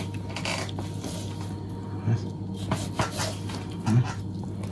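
Kitchen knife scoring the rind of a raw pork belly on a wooden cutting board: a handful of short knocks and scrapes, the loudest about two and four seconds in, over a steady low hum.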